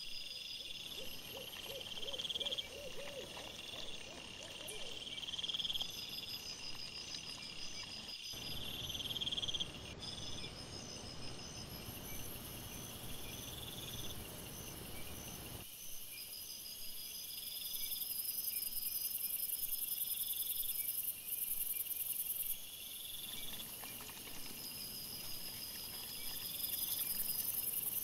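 Crickets chirping at night in evenly repeated pulsed trills over a high continuous buzz. The background changes abruptly twice where recordings are joined. A brief lower warbling trill comes about a second in.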